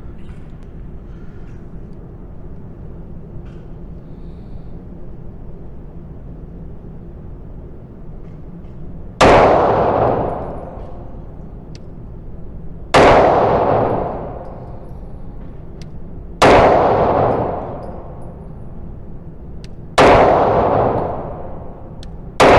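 Semi-automatic pistol fired slowly, five single shots about three and a half seconds apart, the first about nine seconds in and the last at the very end; each shot rings out in a long echoing tail.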